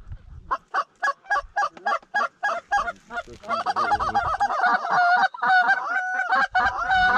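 Canada goose honking: a quick run of short clucks, about four or five a second, then from about halfway a denser chorus of longer, overlapping honks.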